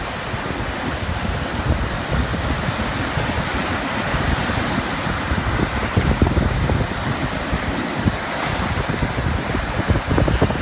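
Small ocean waves lapping on a beach in a steady wash, with wind buffeting the microphone.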